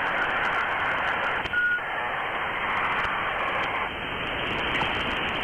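Steady static hiss of an open radio or phone line, cut off above the treble, with one short high beep about one and a half seconds in.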